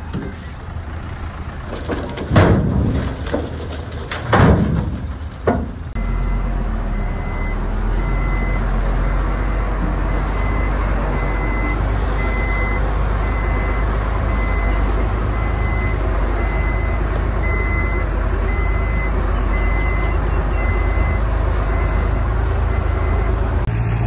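Heavy earthmoving machine working: a few short loud bursts in the first seconds, then its engine running steadily under load with a reversing alarm beeping at a regular pace from about six seconds in.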